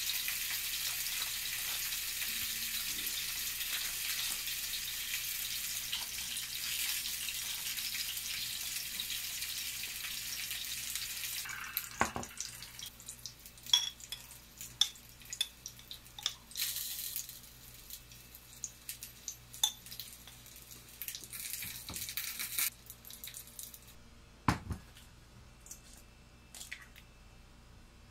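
Steady rush of running tap water that stops suddenly about eleven seconds in. Then scattered small kitchen clinks and taps of glass, metal and a jar lid, with a sharp knock near the end as an egg is cracked against a glass bowl.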